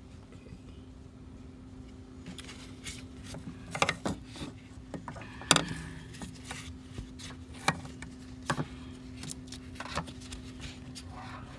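Irregular metallic clicks, taps and scrapes of long pliers working at the intake manifold runner control rod, trying to pop it back onto its linkage. The two loudest knocks come about 4 and 5.5 seconds in, over a steady low hum.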